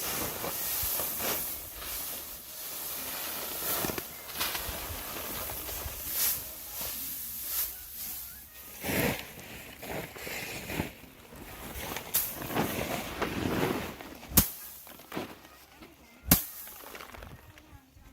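Dry rustling and scraping in uneven surges, with a few sharp knocks; the two loudest knocks come near the end.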